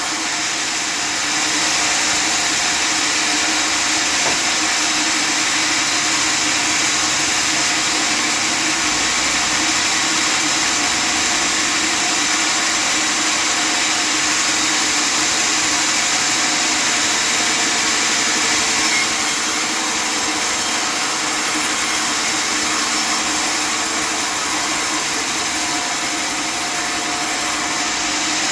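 Custom-made table sawmill's saw running steadily as it cuts through sebitan wood: a loud, even whirring hiss with a steady hum underneath.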